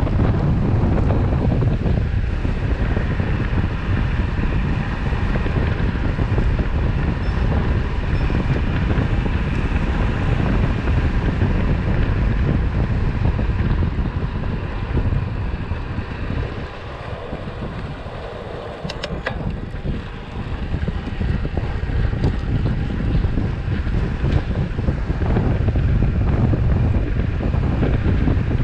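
Wind buffeting the microphone of a road bike descending at speed, a steady low rushing noise that eases for a few seconds about two-thirds of the way through before building again.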